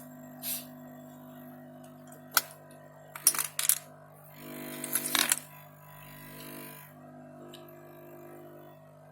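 A few sharp clicks and clacks of small hardware being handled on a workbench, with a cluster of them about halfway through, over a steady low hum.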